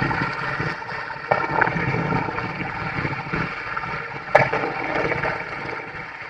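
Water running and gurgling through a gap in a mud bank at a fish trap, with a few sudden knocks, the sharpest about four and a half seconds in.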